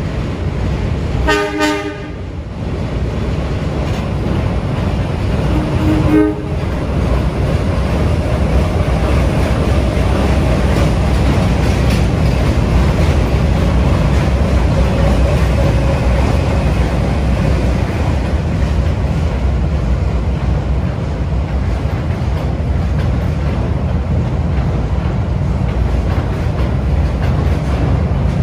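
Diesel work locomotive sounding its horn in a short blast about a second and a half in and a shorter, lower toot about six seconds in. Then a steady low rumble of the locomotive's engine and the wheels of the towed new R211 subway cars as the train passes.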